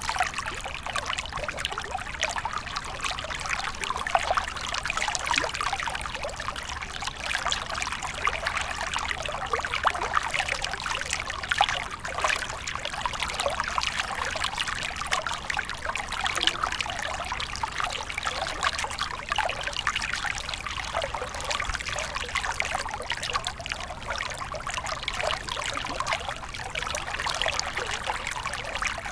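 Small stream running over rocks: a steady babbling trickle of water with many small splashes and gurgles.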